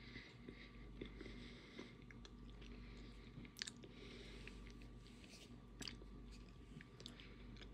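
Faint chewing of a mouthful of enchilada, with soft mouth clicks here and there.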